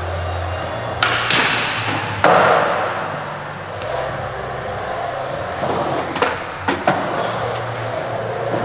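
Skateboard wheels rolling on smooth concrete, with sharp clacks of the board against the floor about one second in and a louder one a little after two seconds. Several lighter clicks come near the end.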